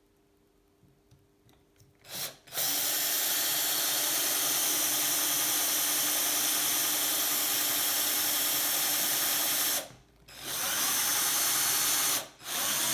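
Electric drill boring small cosmetic holes in a bicycle seat post clamp. The drill runs steadily with a motor whine for about seven seconds, stops briefly, then runs again for about two seconds, with short blips of the trigger near the end.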